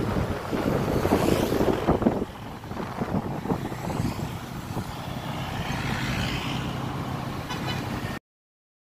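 Road traffic of motorbikes and cars passing on a city street. It is loudest for the first two seconds, drops abruptly, continues as a steady traffic hum, and the sound cuts off completely about eight seconds in.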